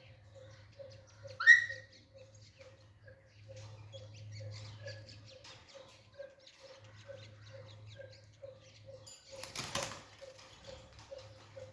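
Caged Alexandrine parakeet giving one loud rising call about a second and a half in, then soft chirps and clicks, with a short rustling burst near the end that fits its wings flapping.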